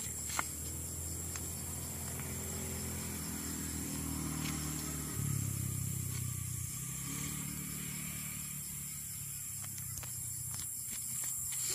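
A motor vehicle engine running with a low, steady hum. It grows louder and changes pitch about five seconds in, then eases back about seven seconds in. A short click comes about half a second in.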